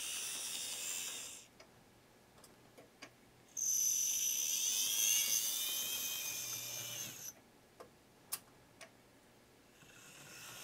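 The small electric motor and gearing of a TYCO/Mantua 0-4-0 HO model steam locomotive whine in high-pitched spells as it runs along the track: briefly at first, longer and louder from a few seconds in, and again near the end. Between the spells there are a few sharp clicks. The engine is running well after its restoration.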